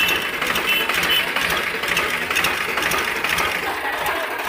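Powertrac tractor's diesel engine running with a rapid, even clatter as it pulls a stuck Eicher truck out of a field.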